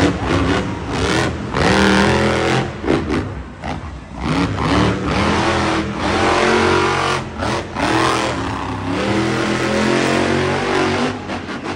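El Toro Loco monster truck's supercharged V8 revving hard, its pitch climbing and dropping again and again as the truck is driven through its freestyle run.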